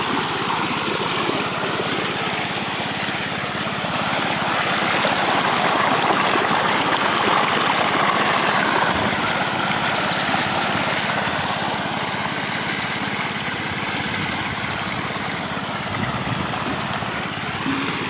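Muddy water gushing steadily from the lay-flat discharge hose of a pump draining a pond, with the pump's engine running steadily underneath.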